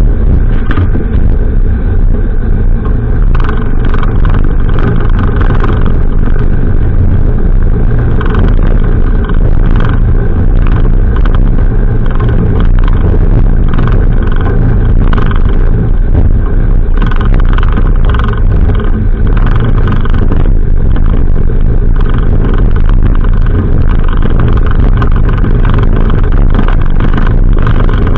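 Bay boat running at speed across open water: steady, loud wind buffeting the microphone over the drone of the boat's engine, with irregular knocks as the hull slaps the chop.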